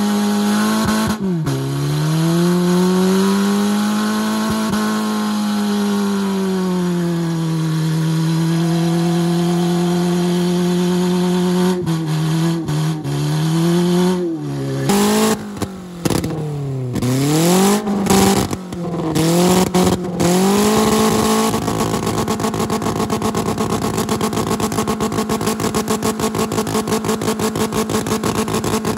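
A small front-wheel-drive hatchback's engine revving hard through a burnout, its pitch swelling and sagging as the spinning front tyre slips. From about twelve seconds in, the revs drop and climb again several times in quick succession. After about 21 seconds another car's engine is held steady at high revs in a burnout.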